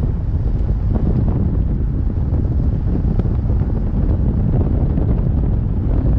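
Wind buffeting the microphone: a steady, loud low rumble, over the noise of a vehicle driving slowly on asphalt, with a few faint ticks.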